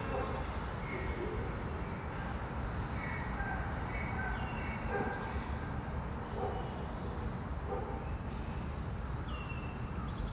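Outdoor ambience: a steady low rumble with scattered short, high chirps every second or two.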